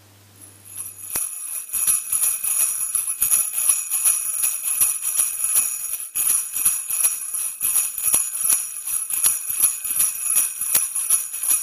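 Jingle bells shaken continuously in a dense, steady jingle, starting about a second in after a brief silence.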